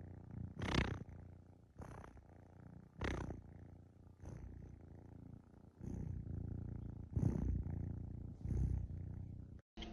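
Domestic cat purring close up: a low rumbling purr that swells about once a second with each breath.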